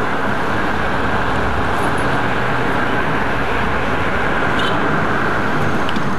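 Steady, even rush of road and wind noise from a moving car.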